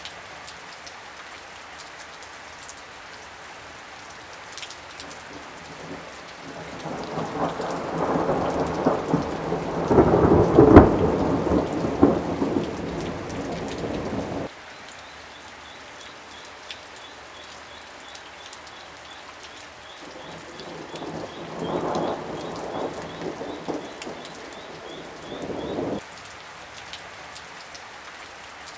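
Steady summer rain falling, with two long rolls of thunder: a loud one about a quarter of the way in that swells and then breaks off sharply, and a weaker one about two-thirds of the way in.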